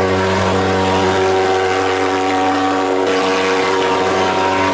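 Thermal fogging machine running, spraying insecticide fog against dengue mosquitoes: a loud, steady pulse-jet drone with a hissing rush over it.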